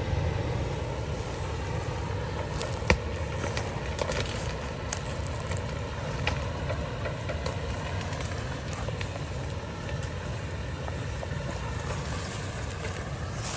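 Toyota 4Runner's 4.0-litre V6 running at low revs as it crawls slowly over a brushy off-road trail, a steady low rumble. Scattered sharp snaps and crackles sound over it, the loudest about three seconds in.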